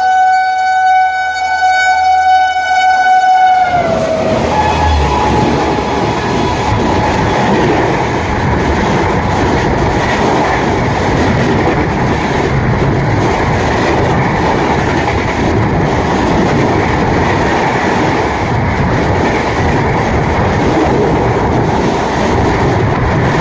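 An oncoming express train's locomotive horn sounds one long, steady blast that drops in pitch as the locomotive passes about four seconds in. Then the steady, loud rush and rattle of its coaches passing at high speed on the adjacent track, close by.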